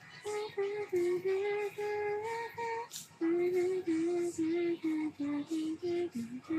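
A woman's voice singing a slow melody in long held notes, with a short break about halfway through and a dip to a lower note near the end.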